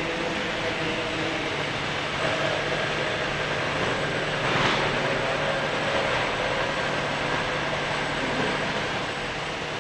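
PU shoe-sole moulding machine with its conveyor running: a steady mechanical noise with a low hum and a brief hiss about halfway through.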